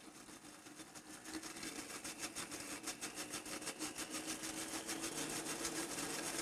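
Vitamix blender motor running on low speed with its lid on, blending the liquid vinaigrette ingredients. It is a steady whir that grows gradually louder.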